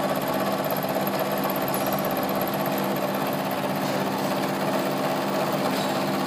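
End mill on a vertical milling machine cutting along the side of a metal workpiece, a steady pitched machining hum and whine as the table is fed slowly across by hand during a light 0.5 mm peripheral milling pass.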